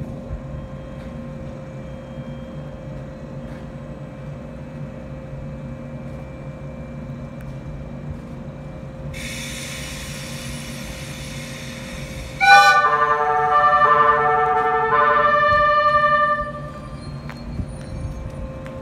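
JR East 485 series train approaching slowly with a steady low hum. About nine seconds in a hiss starts. At about twelve and a half seconds the train's music horn plays a short melody of stepped notes lasting about four seconds.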